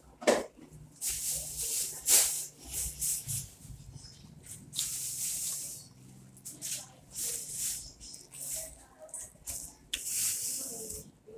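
Hands picking and pulling at a cut jackfruit resting on a plastic bag: several short bursts of crinkly rustling, with a sharp click or two in the first couple of seconds.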